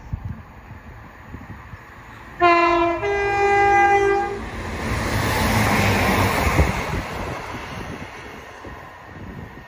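A class 165 diesel multiple unit sounds its two-tone horn about two and a half seconds in: a short lower note, then a longer higher one. The train then runs past close by, its engine and wheel noise loudest a few seconds later and fading near the end.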